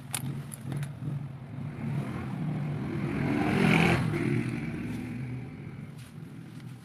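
A few light clicks, then engine noise that swells over about two seconds, peaks just before the middle and fades away.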